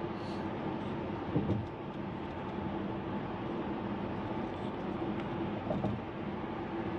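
Steady road and engine noise inside a car's cabin at highway speed, a constant rush with a low hum, broken by two short louder bumps about a second and a half in and near six seconds in.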